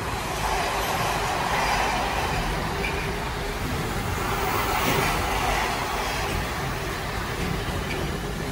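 Container freight train's wagons rolling past, a steady rumble and rush of steel wheels on rail.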